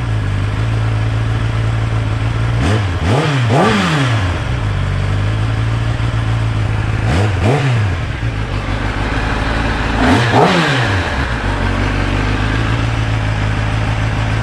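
Kawasaki ZX-10R's inline-four engine idling through its stock exhaust, blipped four times with short, light revs that rise and fall quickly: two close together about three seconds in, one about halfway, one about ten seconds in. The revs are kept low because the engine is still being broken in.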